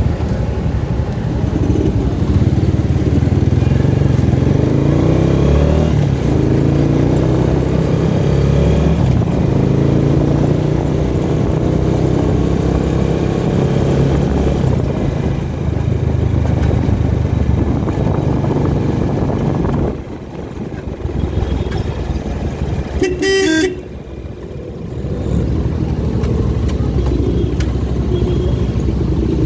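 Motor vehicle engine and road noise on the move in traffic, with a short horn honk about three quarters of the way through.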